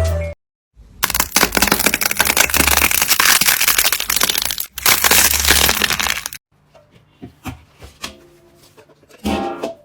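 Crunchy slime being squeezed and pressed by hand, making a dense, loud crackling for about five seconds. It then settles into softer, scattered pops and clicks, with one louder squelch near the end.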